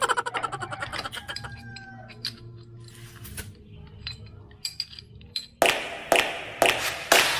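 Metal tools and parts clinking and tapping during scooter rear-brake work: a quick run of rapid clicks at the start, scattered small taps, then several sharper clanks near the end.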